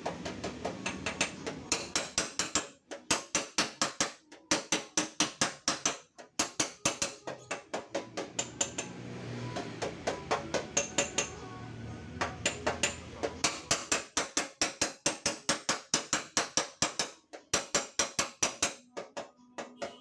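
Hammer tapping on a car's dented sheet-metal fender to beat it straight, about five quick blows a second in runs of a few seconds with short pauses between.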